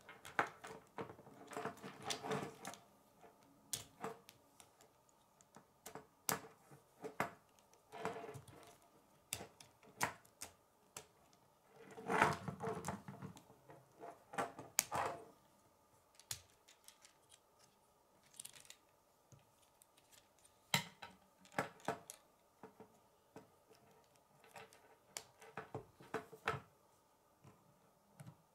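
Plastic K'nex rods and connectors clicking and snapping together as pieces are fitted by hand: irregular sharp clicks, with a few busier bursts of clatter.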